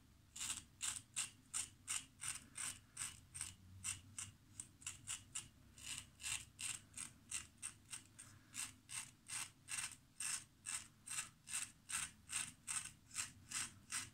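GEM 1912 single-edge safety razor cutting through lathered stubble in short quick strokes, about three a second, each one a crisp scratchy rasp.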